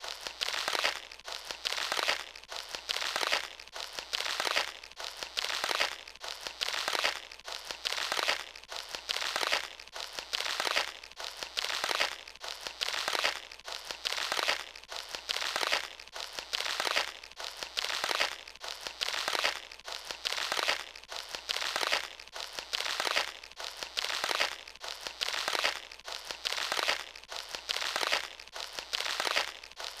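Water spraying from a garden hose nozzle onto plants and leaves: a rushing, hissing spray that swells and dips in an even, repeating rhythm.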